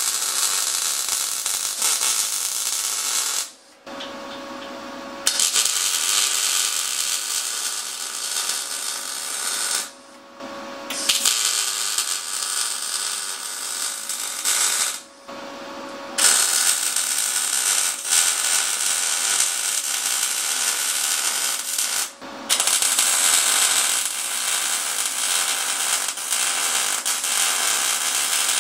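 MIG welder arc crackling as the chopper's rear fender mounts are finish welded, in five runs of about four to six seconds with short pauses between. A faint steady hum is left in the pauses.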